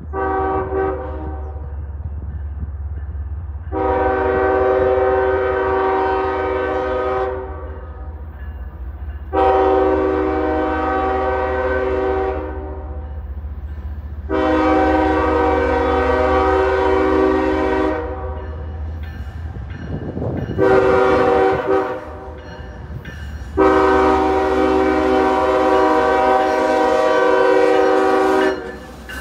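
CSX diesel freight locomotive's air horn sounding the grade-crossing signal as the train approaches: three long blasts, a short one, then a final long blast held until the locomotive reaches the crossing. Under the horn runs the low, steady rumble of the approaching diesel engines.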